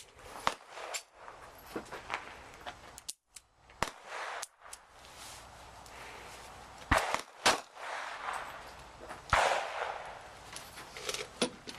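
Handgun shots at a shooting range, several at irregular intervals with softer distant shots between them. The loudest three come in the second half, two in quick succession and one about two seconds later, each with a short echo.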